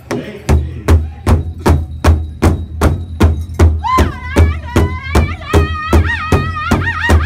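A powwow drum group beats a large shared drum in steady unison, about two and a half strokes a second. About four seconds in, a lead singer comes in with a high, wavering song line over the drum.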